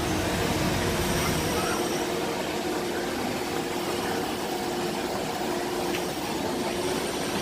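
Steady mechanical hum with two faint steady tones.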